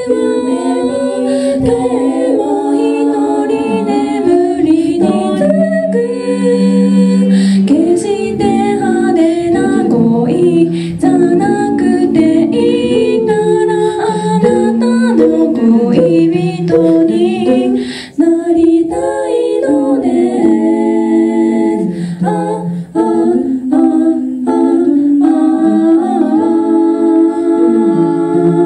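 Four-voice female a cappella group singing in close harmony into handheld microphones, with several sung parts moving together. The singing briefly breaks about eighteen seconds in.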